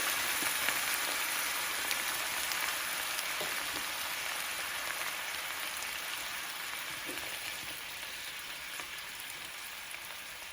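Water and balsamic vinegar sizzling in a hot frying pan with sautéed onion, the sizzle slowly dying down as the liquid cools the pan.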